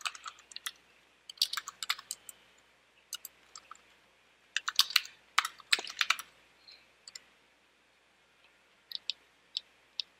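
Computer keyboard being typed on: several short bursts of keystroke clicks, then a pause of a few seconds and a few single keystrokes near the end.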